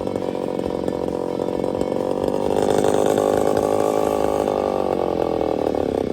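Homelite Super XL Auto two-stroke chainsaw engine running, the first run after its broken starter was replaced. The note rises a little around the middle, then drops in pitch near the end as the engine winds down.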